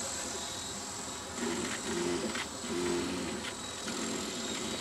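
Ikarus Eco8 electric RC helicopter flying at a distance: a faint steady high whine from its motor and rotor. Between about one and a half and three seconds in, a few short low steady tones sound over it.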